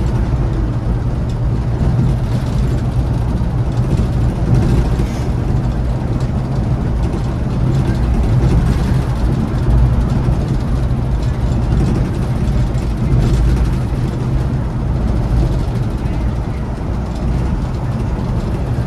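Scania coach under way: a steady engine drone with road and tyre rumble, no clear changes in pace.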